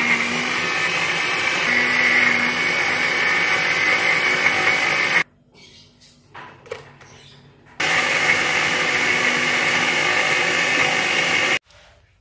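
Green Maspion electric blender running, grinding chillies, shallots and garlic into a spice paste. It stops about five seconds in, then runs again for about four seconds and stops near the end.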